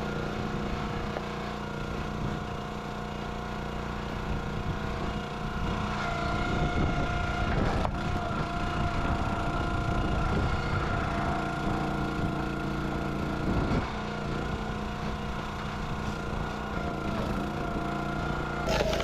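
Engine of a firewood log splitter running steadily, a little louder from about six seconds in.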